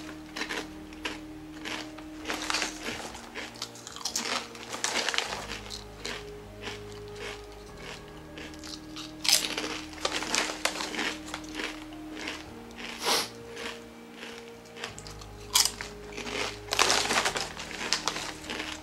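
A mouth chewing crunchy hot, spicy chips, with loud crunches in irregular clusters. Soft background music with sustained tones plays underneath.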